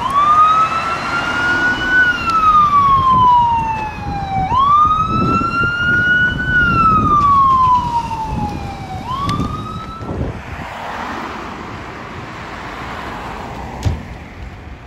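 Fire engine's Whelen electronic siren on wail: two slow rise-and-fall sweeps and the start of a third, which cuts off about ten seconds in, with the truck's engine rumbling beneath. After it stops, a steady low rumble of engine and road noise.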